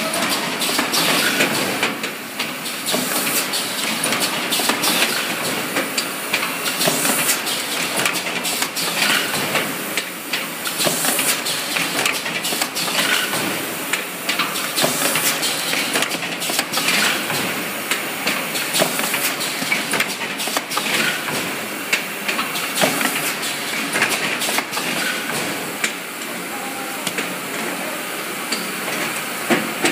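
A4 copy-paper ream wrapping machine running: a steady noisy hiss of machinery with frequent, irregular clacks and knocks from its pushers and folding mechanism as reams are wrapped in BOPP film.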